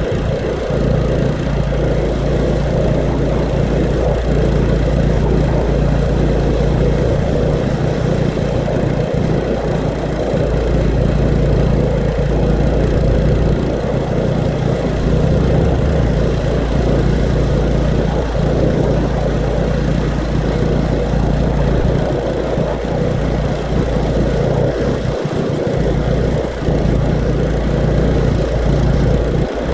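Engine-driven pressure washer (water blaster) running steadily at an even pitch while its wand is in use.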